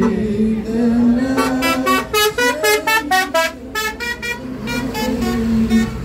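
A coach bus's 'telolet' multi-tone horn plays a quick tune of short horn notes jumping between pitches, starting about a second and a half in and running for roughly three and a half seconds.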